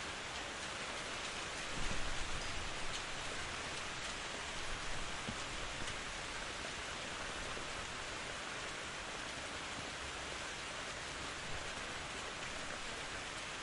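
Steady rain falling in an even hiss, with a brief low rumble swelling about two seconds in and a smaller one near five seconds.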